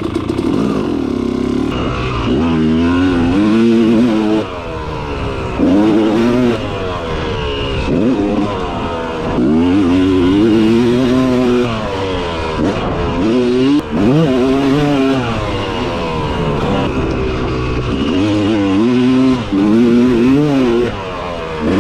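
Yamaha YZ250 single-cylinder two-stroke dirt bike engine under hard throttle. Its pitch climbs and falls back again and again, a dozen or so times, as it revs up and backs off while riding.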